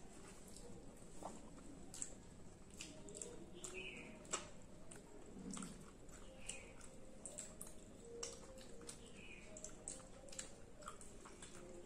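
Faint sounds of two people eating with their hands: chewing, and fingers working saucy fried rice on plates, with scattered small clicks.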